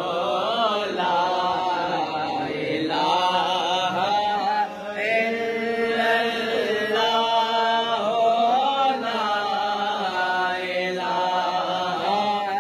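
A young man's solo voice chanting a naat, a devotional Urdu hymn in praise of the Prophet, in long melodic phrases with held, wavering notes and brief breaks between them.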